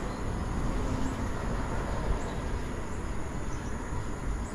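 Steady outdoor background noise with a low rumble, and a few faint high chirps now and then.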